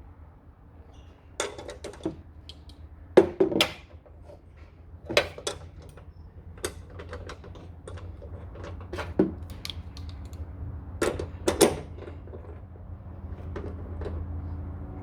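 Hand tools clicking and knocking against metal car parts in short clusters of sharp clicks, the loudest a little after 3 seconds in and again around 11 to 12 seconds in, over a low steady hum.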